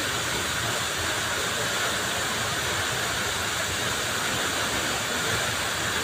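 Steady, even rush of a tall waterfall pouring into its plunge pool.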